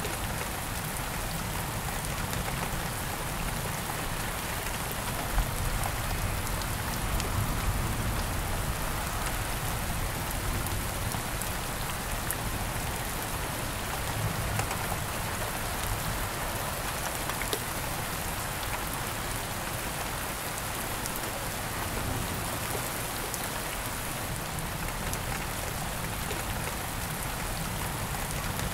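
Steady rain falling, a constant hiss full of fine drop ticks over a low rumble, with one louder tap about five seconds in.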